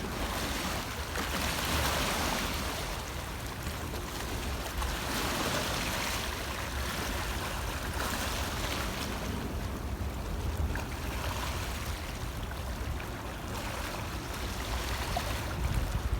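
Ocean waves breaking and washing in, a hiss of surf that swells and fades every few seconds over a steady low rumble.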